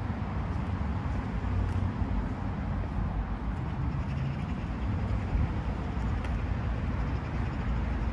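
Outdoor urban ambience: a steady low rumble with a few faint ticks.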